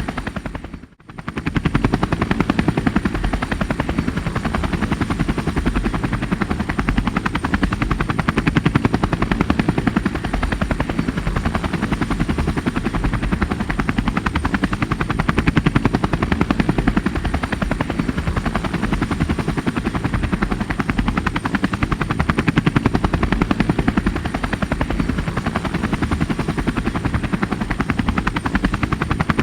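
Rescue helicopter's rotor blades chopping steadily and rapidly, with a deep, heavy low end. The sound briefly drops out about a second in, then carries on unchanged.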